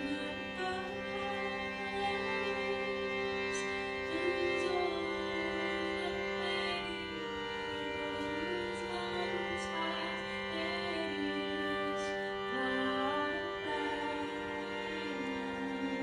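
Live music: a sustained drone under a slow melodic line that glides and steps, with a few soft high taps here and there.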